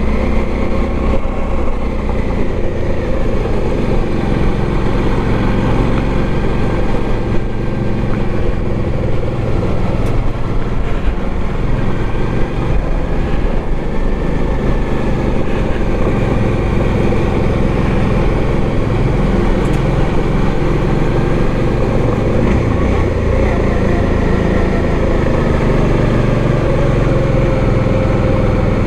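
Motorcycle engine running steadily at riding speed, with wind rumble on the microphone.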